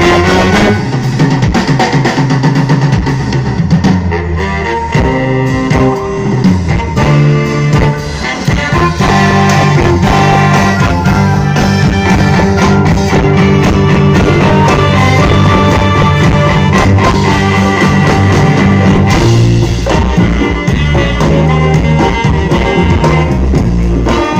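A big band playing live and loud: a saxophone section, brass and a rhythm section with drums, led by a saxophonist out front.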